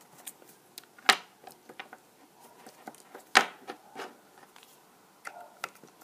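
Small sharp clicks and ticks of a precision Phillips screwdriver turning and seating on the tiny screws of an iPhone 5's dock connector bracket, metal on metal. Two clicks stand out, about a second in and a little past three seconds.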